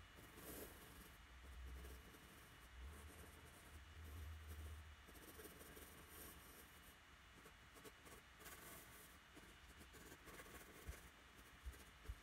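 Faint scratching of a graphite pencil on drawing paper, in many short strokes as it shades.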